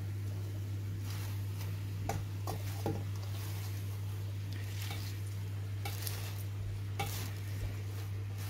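Handfuls of chopped fresh spinach dropped from a steel bowl into a steel cooking pot, with leaves rustling, sizzling in the pot and a few short clicks of metal on metal. A steady low hum runs underneath.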